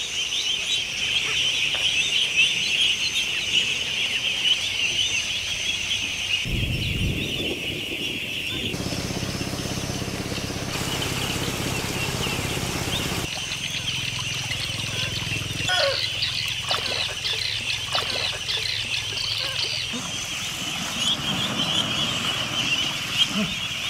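A large flock of ducklings peeping continuously, a dense mass of high cheeping. In the middle stretch, water rushing and splashing into a pool partly covers the peeping.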